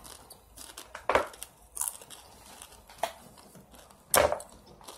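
Rolled chili corn chips (Dinamitas) being eaten from their crinkly snack bag: four short, sharp crunching and crinkling sounds, the loudest about four seconds in.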